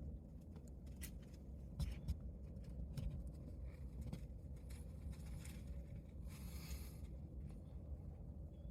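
Scattered light clicks and rustles, then about six seconds in a hissing rush of air through the nose lasting under a second: a white-tailed buck's snort-wheeze, the rutting buck's aggressive challenge call. A low rumble runs underneath.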